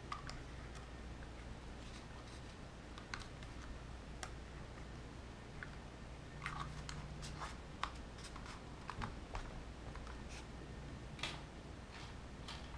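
Faint, scattered clicks and taps of plastic parts and wires being handled and fitted back onto a radio-controlled car's chassis, over a steady low hum.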